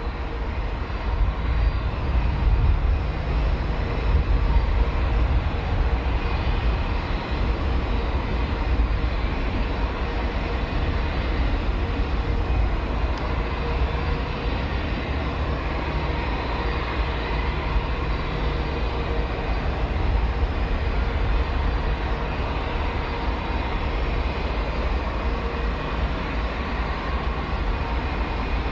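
Airbus A320-232's IAE V2500 jet engines running at low taxi power: a steady low rumble with a faint thin whine over it.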